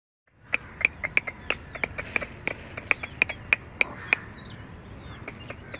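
A hen and her chicks calling: a run of short, sharp calls about three a second for the first four seconds, then thin, high, falling chick peeps.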